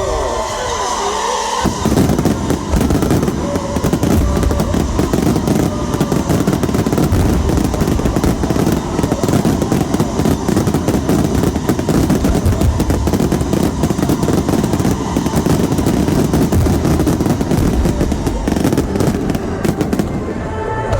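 Finale fireworks barrage: dense, rapid, continuous bangs and crackling, starting about two seconds in. Music is heard only at the very start.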